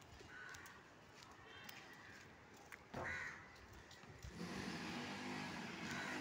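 Crows cawing a few separate times over faint background noise, the loudest call about halfway through. A louder low rumble comes in about two-thirds of the way through.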